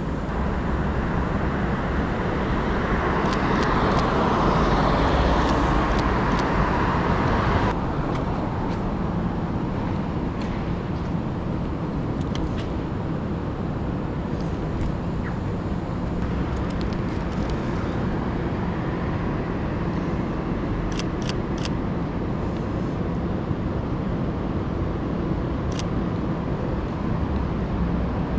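City street traffic: cars passing on the road, with one pass building up over several seconds before the sound cuts off abruptly about eight seconds in. Faint scattered clicks here and there.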